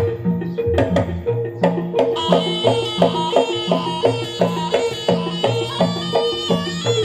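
Electronic keyboard playing a steady percussion beat with tabla-like drums and a repeating bass line, with a reedy lead melody coming in about two seconds in.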